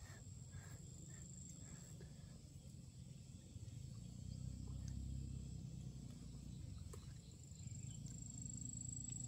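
Faint outdoor background: a steady high-pitched insect trill over a low rumble that swells a little midway.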